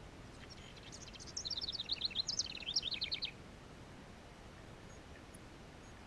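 A wren singing one song, a rapid run of quick high notes in changing groups, lasting about three seconds.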